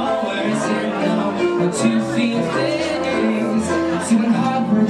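Man singing a slow pop-soul ballad live, with piano accompaniment.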